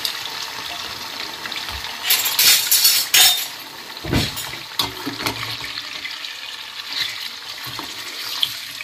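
Raw chicken pieces sizzling in hot oil in a frying pan, with a metal slotted skimmer scraping and clattering against the pan as the pieces are stirred. The scraping is loudest about two to three seconds in, with a few lighter knocks a second or two later.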